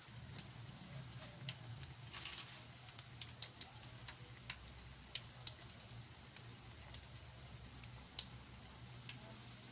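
Hot oil crackling and popping around squash fritters deep-frying in a wok: irregular sharp pops, a few each second, over a faint steady low hum.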